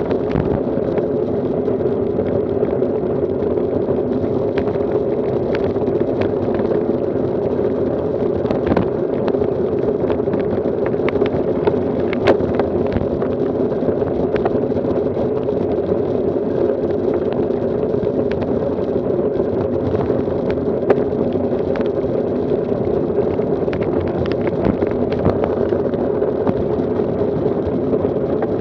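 Steady rushing riding noise from a road bicycle rolling at speed on asphalt, wind and tyre noise together, with scattered sharp ticks now and then.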